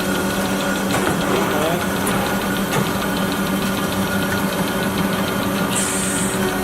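Cosen AH-320H dual column band saw running, a steady hum from its drive and hydraulics, with a short high hiss about six seconds in.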